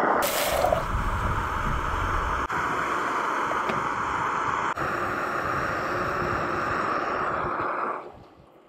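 Backpacking canister stove (integrated pot system on a Coleman butane gas canister) burning with a steady hiss. The hiss dies away about a second before the end.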